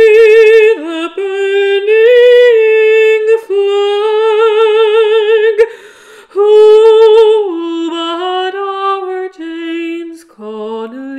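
A woman singing an Irish folk ballad unaccompanied, holding long notes with a wide vibrato. She pauses briefly for breath about six seconds in.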